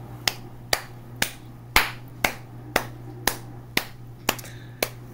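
A person snapping their fingers in a steady beat, about two snaps a second, ten snaps in all.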